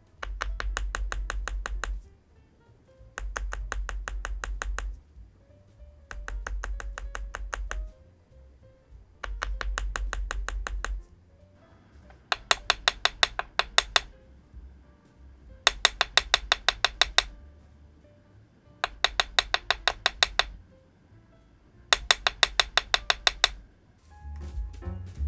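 Mechanical keyboard typing test: eight bursts of rapid, even keystrokes, each about two seconds long with short pauses between them. The first four sound deeper and fuller. The last four are sharper, with louder individual clacks.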